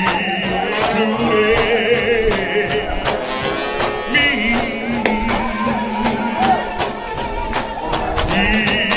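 A gospel shout band of brass horns, led by trombones, playing loud sustained notes with a wide, fast vibrato in the lead horn, over percussion keeping a steady fast beat.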